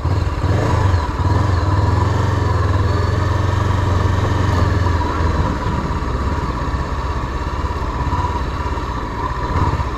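Street sport bike's engine running steadily as it rides along a grassy trail, a constant low hum with a steady higher whine over it; the engine note eases off a little about halfway through.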